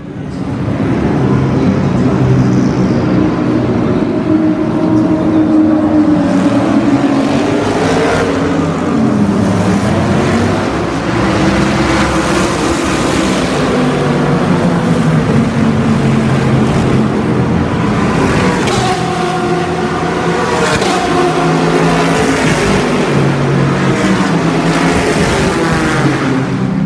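A pack of endurance race cars, prototypes and GT cars, passing at racing speed. It is loud, with several engines sounding at once and their pitch rising and falling as each car goes by.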